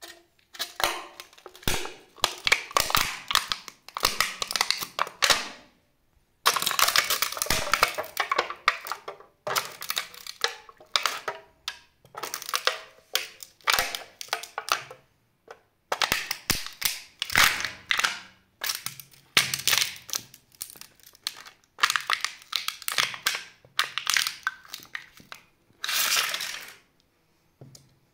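Aluminium drink can crumpling and crackling under the heel of a platform boot as it is pressed flat against a tile floor, in a long series of crunching bursts with short pauses between them.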